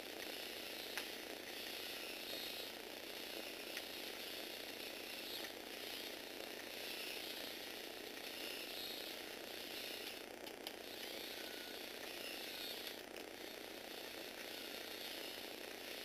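A walking robot's Tamiya Universal Gearbox motors running steadily with a whirring, ratcheting gear noise, swelling and fading in a regular cycle as the Lego Technic legs step. A few sharper clicks come from the legs on the hard floor.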